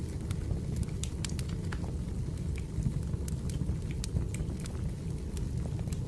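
Firewood burning: a steady low rumble of flames with irregular sharp crackles and pops, a few a second.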